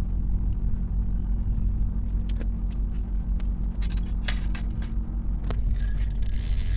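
Steady low rumble of a car on the move, with a cluster of light clicks and jangles about four seconds in and one sharp click shortly after.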